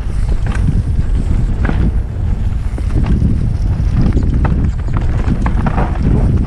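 Wind buffeting the helmet camera's microphone during a mountain-bike descent, over the rumble of tyres on a dirt and rock trail, with scattered clicks and rattles from the bike over the bumps.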